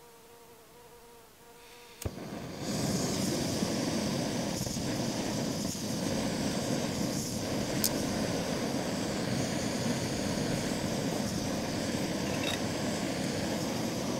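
Backpacking gas canister stove lit with a sharp click about two seconds in, then the burner running with a steady, even hiss under a pot of water.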